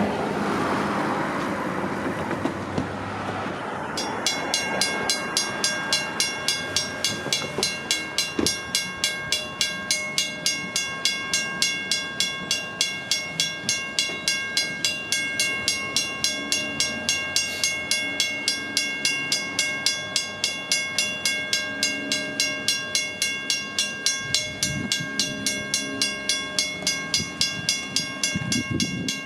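Railroad crossing bell, a Western-Cullen-Hayes first-generation unit, starts ringing about four seconds in and keeps striking steadily at two to three strikes a second. A rushing noise fades out before it begins.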